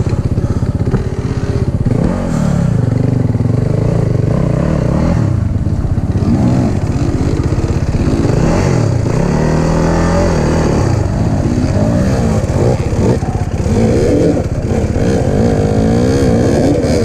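Dirt bike engines revving up and down over and over under load while climbing a steep rocky trail, with the odd clatter of the bike over the rocks.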